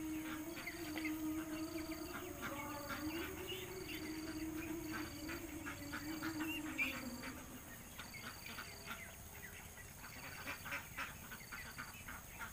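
A large flock of domestic ducks quacking and calling over one another as they are fed. A low, steady hum that wavers slightly in pitch runs underneath and fades out about seven seconds in.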